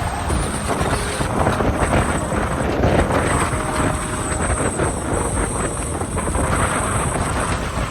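Road traffic noise with wind rushing over the microphone, as when riding along a street, steady throughout, with a few faint steady tones in the background.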